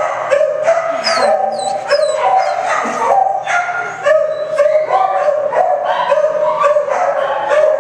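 Many shelter dogs in kennels barking nonstop, their barks overlapping, with a few high yips and whines among them about a second or two in.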